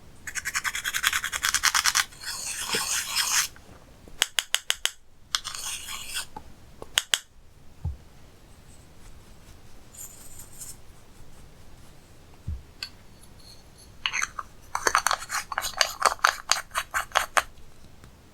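Slime being squished and worked, making spells of rapid crackling clicks and pops, four times with short pauses between.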